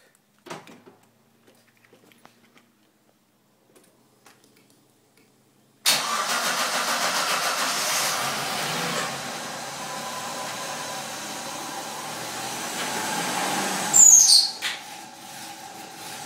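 A few faint clicks, then the Suzuki Vitara's V6 engine starts about six seconds in, on its first start after a timing chain replacement, and runs at a high idle that drops to a lower, steady idle a few seconds later. About fourteen seconds in there is a brief loud burst with a falling high whistle.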